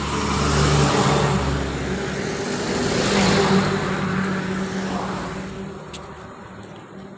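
A motor vehicle passing on the road: engine and tyre noise swell up, peak twice, then fade away.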